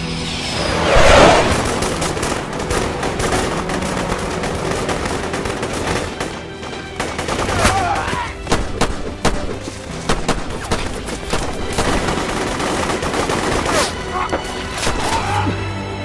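Rapid, sustained automatic gunfire from several weapons in a film battle soundtrack, mixed over a music score, with the loudest swell of sound about a second in.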